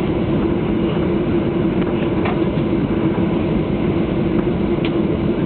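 Steady cabin noise of a jet airliner after landing: a constant low rumble with a steady hum, with a couple of faint clicks.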